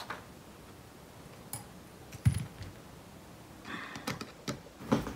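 Small clicks and taps of a screwdriver and fingers working on a wall rocker light switch, with one louder knock about two seconds in and a short run of clicks near the end.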